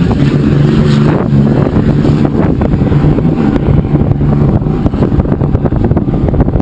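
Offshore racing powerboat engines running at speed, a steady drone, under heavy wind buffeting on the microphone.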